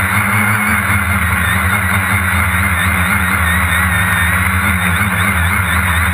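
Quadcopter's electric motors and propellers whining steadily as it climbs, heard from the onboard camera, the whine wavering quickly in pitch as the motor speeds adjust, over a low hum.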